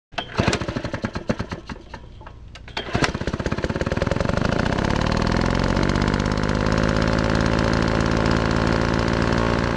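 A small engine sputtering and popping irregularly, catching about three seconds in, then running with its pitch rising and settling into a steady speed before cutting off at the end.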